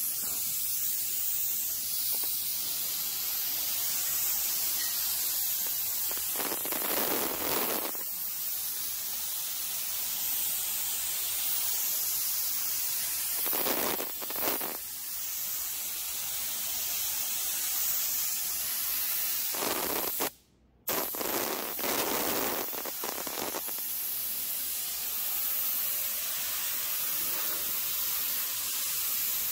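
Industrial-strength contact adhesive being sprayed from a spray gun: a steady high hiss that swells a few times and stops for a moment about twenty seconds in.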